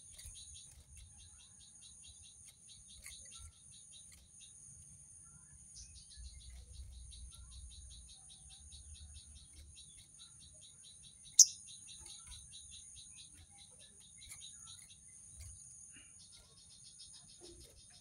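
Steady high-pitched insect drone with a fast pulsing cricket-like trill that stops and starts. About eleven seconds in comes one sharp, loud chirp, the loudest sound, which fits the caged sogon bird.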